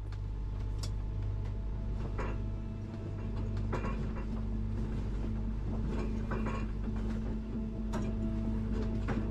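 Scattered clicks and knocks from a sailboat's cockpit winch and lines being worked by hand, over a steady low drone.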